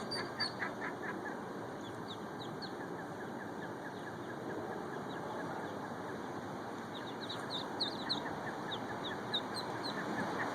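Ducklings peeping: many short, high, downward-sliding peeps, busiest near the start and again after about seven seconds, over steady background noise.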